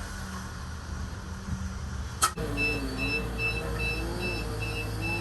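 A steady low mechanical hum, cut off by a sharp click a little over two seconds in, after which a high electronic beep repeats rapidly, about two short beeps a second.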